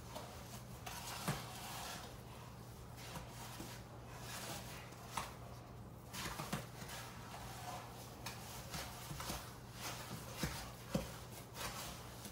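A spoon stirring a thick sugar-and-water paste in a container, with irregular scraping and clicking against the sides.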